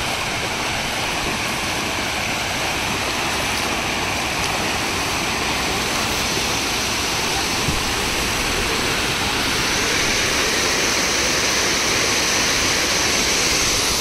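Stream water rushing steadily over a shallow crossing, a little louder and hissier from about ten seconds in.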